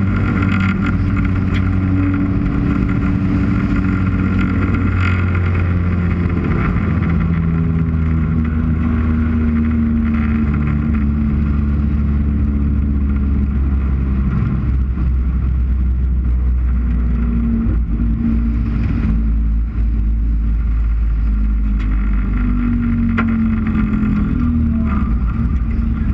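The UCAR race car's four-cylinder engine, heard on board, running at low revs on the cool-down lap, its pitch rising and falling a little with the throttle.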